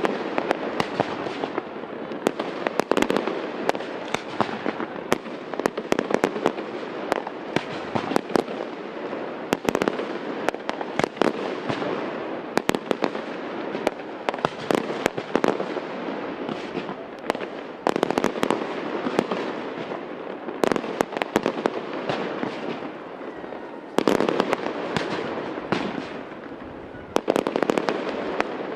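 Fireworks display: aerial shells bursting in rapid sharp bangs over a continuous dense crackle, with flurries of louder reports near the start, about two-thirds of the way through and near the end.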